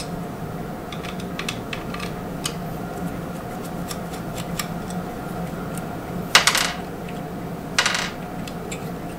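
Small metallic clicks and clinks from a screwdriver backing out the two screws that hold the gear plate to a Lee Pro 1000 shell plate carrier, with two louder short rattles about six and a half and eight seconds in.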